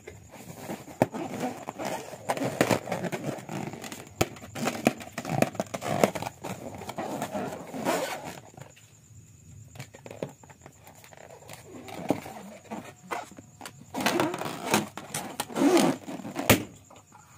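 Rubber balloon handled against hands, rubbing and squeaking with irregular taps and knocks, quieter for a couple of seconds in the middle.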